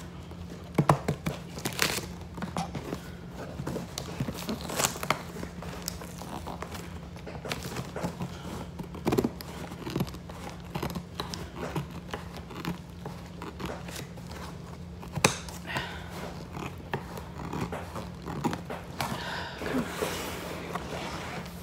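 Scissors cutting open a cardboard shipping box: scattered sharp snips and clicks, with denser rustling of cardboard and paper near the end, over a steady low hum.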